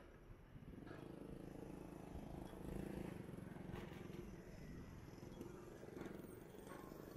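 Low, steady rumble of riding a bicycle on pavement, with a few faint ticks, as picked up by a chest-mounted camera.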